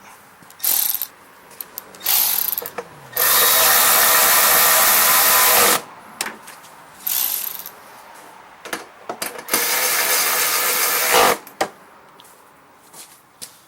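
Handheld power drill-driver running in bursts: a few short spins and two longer runs of about two to three seconds each, driving fasteners back in on the snowblower.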